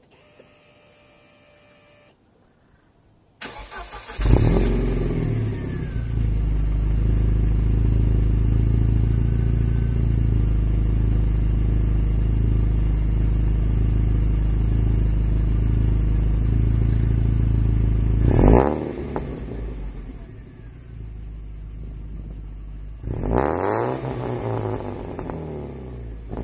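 Mercedes-Benz W202 C200's four-cylinder engine, fitted with a Magnaflow resonator and Remus rear exhaust, started: it cranks briefly about three and a half seconds in, catches and settles into a loud, steady idle. Near the end two short throttle blips come with the idle running quieter between them.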